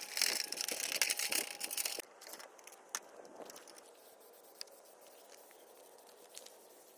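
Sandpaper or an abrasive pad scrubbing over a plastic RC body panel to key the surface for paint: a rough, scratchy rubbing for about two seconds, then only a few light clicks and taps.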